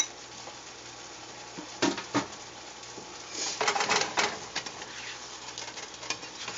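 Plastic spatula stirring asparagus in a frying pan of simmering garlic sauce: a sharp knock at the start, two knocks about two seconds in, and a longer run of scraping and knocking about four seconds in, with the sauce bubbling softly underneath.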